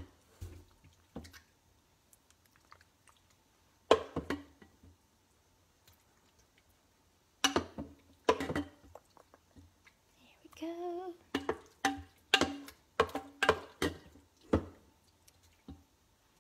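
A serving utensil knocking and scraping against cookware as sauced tortellini is spooned into a baking dish: a sharp knock about four seconds in, a few more near the middle, and a quick run of knocks over the last few seconds.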